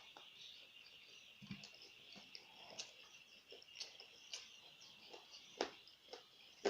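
Close-up eating sounds: chewing with scattered wet clicks and crunches, the loudest a little before the end. Behind them runs a steady high chirring of insects.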